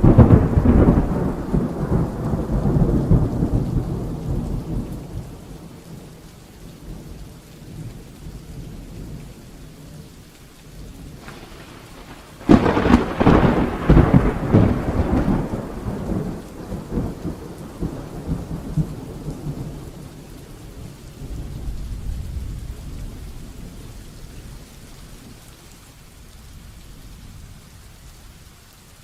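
Heavy rain falling steadily while thunder breaks twice. The first loud clap comes right at the start and the second about twelve seconds in, each rolling away over several seconds. A fainter rumble follows a little after twenty seconds.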